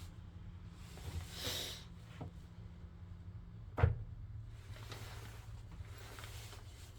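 Handling noise from working on a grinder by hand: a short rustle or scrape, then one sharp click or knock about four seconds in, over a steady low hum.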